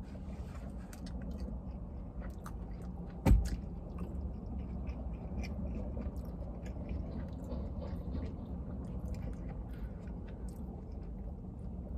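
Close-up chewing of a mouthful of burger: soft wet mouth clicks and smacks, over a steady low hum. A single thump about three seconds in.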